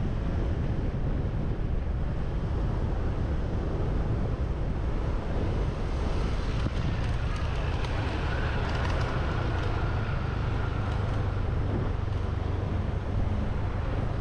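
Wind buffeting the microphone of a camera riding on a moving motorbike, over the steady low noise of the motorbike and road traffic. A faint high whine runs for a few seconds midway.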